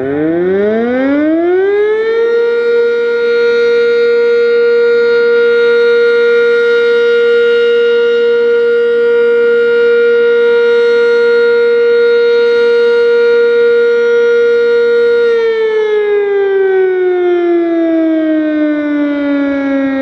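Sentry 3V8-H outdoor warning siren sounding a steady alert. It winds up in pitch over about the first two seconds and holds one steady tone for about thirteen seconds. It then winds down with falling pitch near the end.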